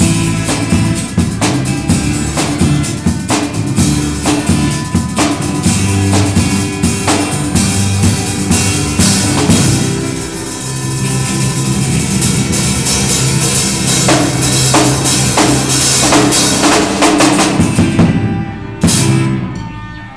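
Live band of drum kit, electric bass and acoustic guitar playing a song, with the drums prominent. Near the end the music stops on one final loud hit and dies away.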